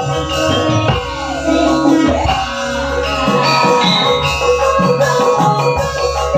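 Live campursari music over a PA: Javanese gamelan-style metallophones and drums over a pulsing bass line, with a steady beat.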